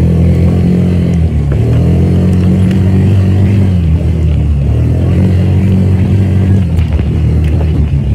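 Four-wheeler (ATV) engine running while riding, its pitch dipping and rising a few times with the throttle.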